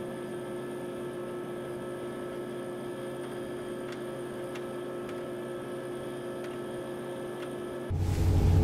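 A steady hum of several even tones over a light hiss, with a few faint ticks around the middle.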